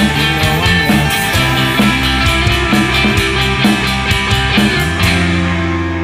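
Indie rock song with drums, bass and guitar playing to a steady beat; about five seconds in the drums stop and a held chord is left ringing.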